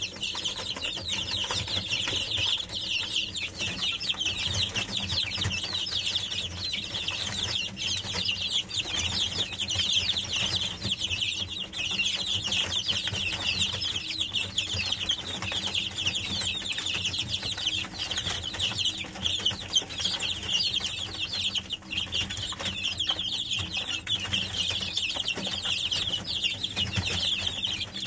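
A flock of young chicks peeping all together: many short, overlapping, downward-sliding chirps with no break. A faint steady low hum runs underneath.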